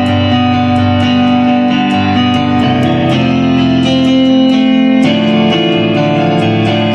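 Solo guitar playing: ringing chords and picked notes, with the notes changing every second or two.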